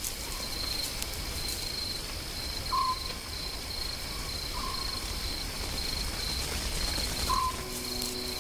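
A bird's short call, a single note with a slight downward slur, heard four times a few seconds apart, over insects chirping in a steady pulsing rhythm of about two chirps a second.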